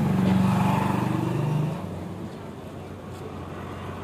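A motor vehicle engine running close by: louder over the first second and a half, then falling away, leaving a steady low hum.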